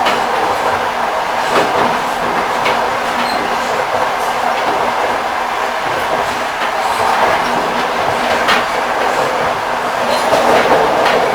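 Railway carriage wheels rolling over the rails: a steady rumble with a few sharp knocks from the wheels passing over rail joints, spaced unevenly.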